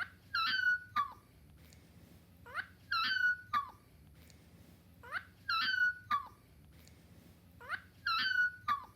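Dog yawning out loud, four times at even intervals. Each yawn is a high-pitched vocal squeak that slides up, holds a high note, then drops off briefly at the end.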